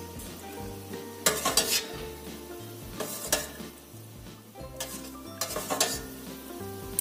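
Stainless-steel mesh strainer and spoon scraping and clinking against a steel pot a few times while boiled pearl sago is scooped out and drained. Quiet background music runs underneath.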